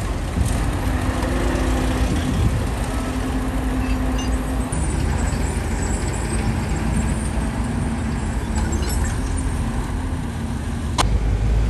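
Steady drone of heavy diesel truck engines running, with a faint engine tone that comes and goes. Near the end a sharp click, then a louder low rumble.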